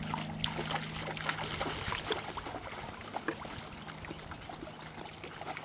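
Shallow lake water splashing and trickling around wading dogs, many small scattered splashes and drips. A low steady hum under it fades about two seconds in.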